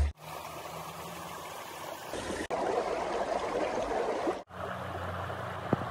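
Running water: a steady rushing noise that drops out sharply twice, with a small click near the end.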